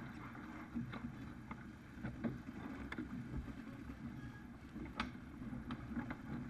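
A Farr 280 sportsboat sailing hard, with water rushing along the hull and wind on the microphone. Scattered light knocks come through about once a second, the sharpest about five seconds in.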